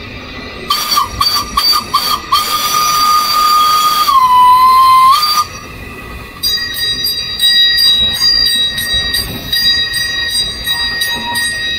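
Steam whistle of a 1914 Arnold Jung steam locomotive blown by hand from the cab: several short toots, then one long blast that drops in pitch for about a second before it cuts off. In the second half a quieter, higher steady tone with a fast, regular ticking runs on.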